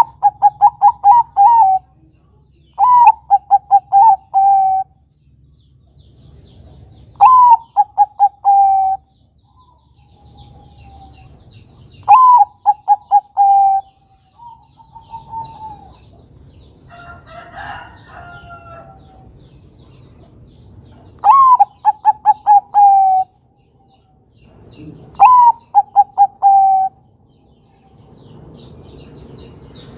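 Bangkok-type perkutut (zebra dove) cooing its song six times. Each phrase opens with a rising then falling note and runs on into a quick string of short coos, a few seconds apart. Faint high chirping of small birds sounds behind it, with a different bird call about 17 seconds in.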